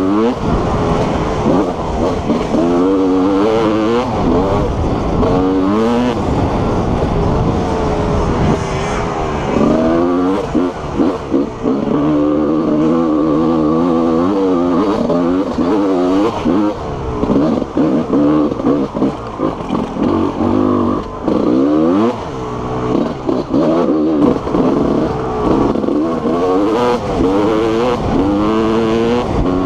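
TM 300 two-stroke enduro motorcycle engine, revving up and dropping back again and again as the bike accelerates and backs off along a rough dirt trail.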